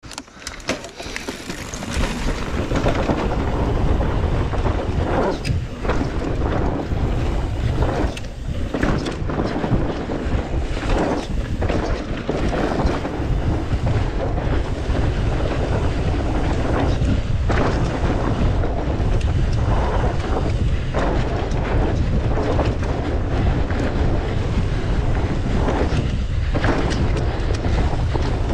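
Wind buffeting the microphone of a mountain bike rider's camera, mixed with the rumble and rattle of the bike's tyres over a dirt trail at speed. It builds up over the first two seconds as the ride gets going, then stays loud and rough with brief dips.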